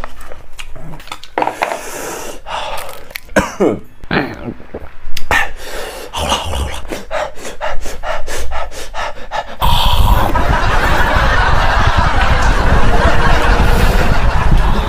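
A man panting and gasping hard, his mouth burning from extremely spicy instant noodles. About ten seconds in, a small handheld electric fan held close to his face switches on and runs with a steady rushing whir.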